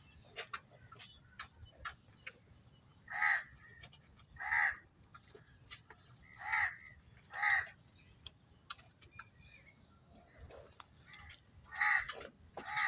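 A crow cawing: six short calls, each under half a second, coming mostly in pairs with pauses of several seconds between.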